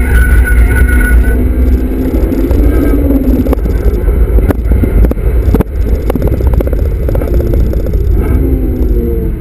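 Honda Civic Type R FD2's 2.0-litre four-cylinder engine under track driving, heard inside the cabin over a heavy low road rumble. The engine note climbs for the first few seconds, then drops away into a stretch of knocks and rattles as the car shifts and slows, and climbs again near the end.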